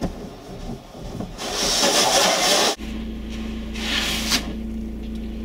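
Car windscreen being washed from inside the car: wet rubbing on the glass and a loud rushing hiss. About halfway through it cuts to a steady low engine hum, with another short hiss.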